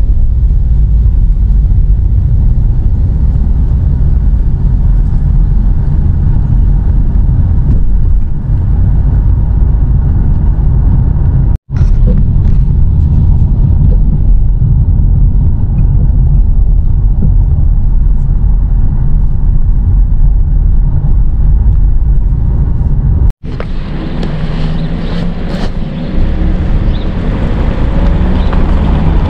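Car cabin road noise while driving: a loud, steady low rumble of tyres and engine. After a cut about 23 seconds in, a broader, hissier rush takes over, with wind on the microphone.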